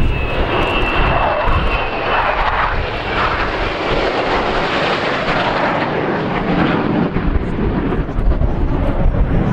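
Four F/A-18 Hornet jet fighters flying overhead in formation: a continuous loud jet roar that deepens in the second half as they pass.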